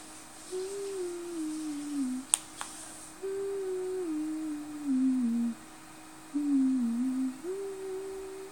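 A person humming a slow tune in phrases that step down note by note, with pauses between phrases. Two sharp clicks come a little over two seconds in.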